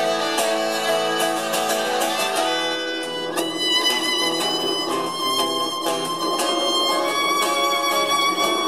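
Live acoustic instrumental music: a fiddle playing the melody over acoustic guitar, with a long high note held steady through the second half.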